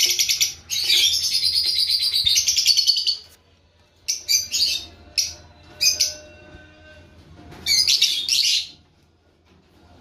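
Lovebird chick calling: a rapid, raspy pulsed call lasting about three seconds, then several short bursts and one more call near the end.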